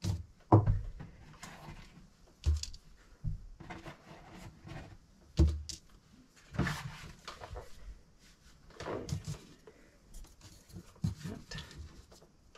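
Thin laser-cut plywood puzzle pieces and small wooden pins being handled and set down on a table: irregular taps, clacks and light thuds, with a few louder knocks.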